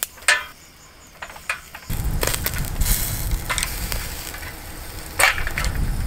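Sharp clicks of metal tongs against a wire grill grate. About two seconds in, a steady sizzle starts as sliced beef cooks over hot charcoal, with the odd tap of chopsticks on the grate.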